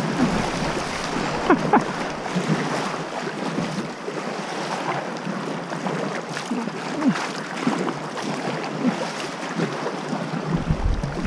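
Sea water sloshing and splashing around a Feelfree Nomad sit-on-top kayak as it is paddled through chop, with short drips and plops from the paddle blades. Wind buffets the microphone near the end.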